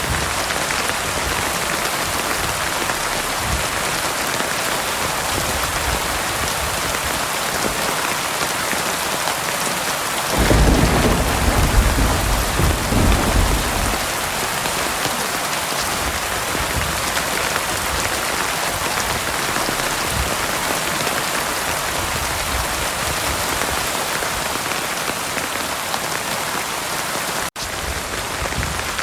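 Heavy rain pouring steadily. A low rumble of thunder comes in about ten seconds in and lasts three or four seconds. Near the end the sound cuts out for an instant.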